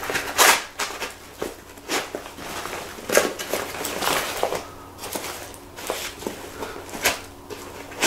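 Fabric backpack of Cordura nylon being handled and shifted: irregular rustling and scuffing of the fabric, with several short, sharper brushes or knocks.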